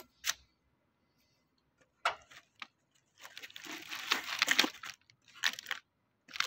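Packaging of a new water pump being handled and opened: scattered short crinkling and rustling noises, with a longer stretch of it past the middle.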